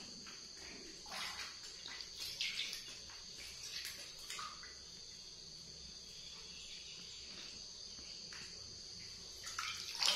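Small splashes and sloshing of water in a large aluminium basin as a baby monkey is bathed, loudest near the end when water is poured over its head by hand, under a steady high whine.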